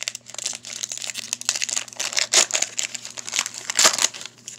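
Foil trading-card pack wrapper crinkling as it is torn open by hand, in irregular crackles with two louder rips, one about halfway through and one near the end.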